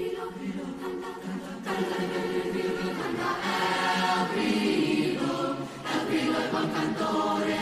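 Youth mixed choir singing, many voices holding sustained chords. The choir gets louder about two seconds in.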